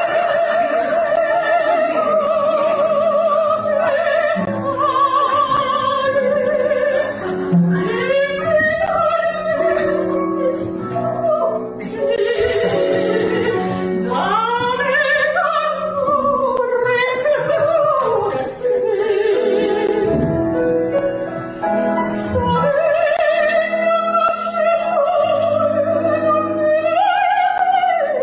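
A woman singing in an operatic style, with wide vibrato, long held notes and sweeping runs up and down.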